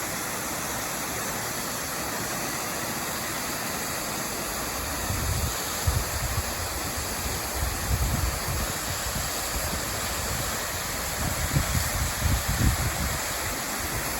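Waterfall's steady rush of falling water. From about five seconds in, gusts of wind buffet the microphone in low rumbles.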